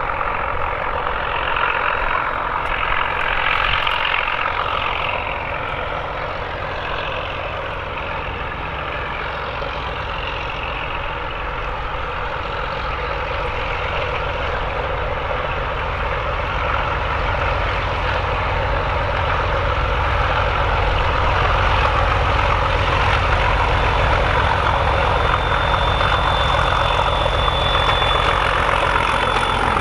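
Two diesel locomotives double-heading a passenger train approach under power, their engines' low drone growing louder as they near. A thin high whine joins in near the end.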